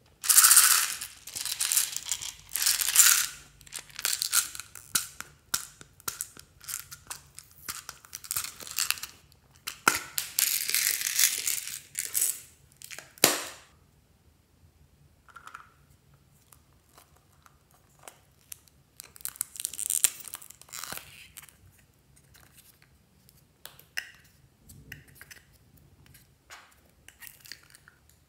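Hollow plastic toy containers being handled and emptied, with small beads and sprinkles pouring out onto slime. Dense crackling and clicking fills the first half, then sparser, quieter clicks follow.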